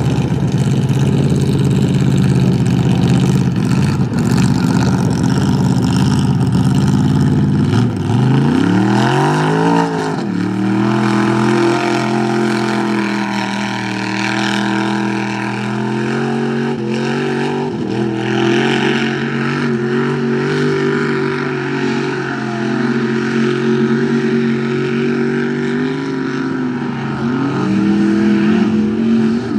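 Mud-bog truck's engine under hard throttle. It climbs sharply in pitch about eight seconds in and then holds at high revs, dipping and rising again near the end.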